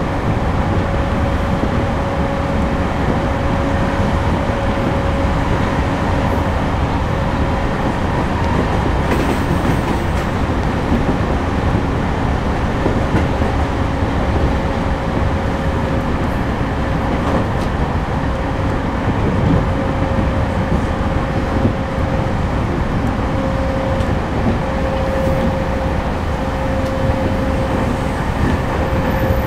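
Running noise inside a JR East E231-series suburban train car refitted with Hitachi IGBT-VVVF traction equipment, travelling steadily between stations: a continuous rumble of wheels on rail with a steady hum that fades in and out.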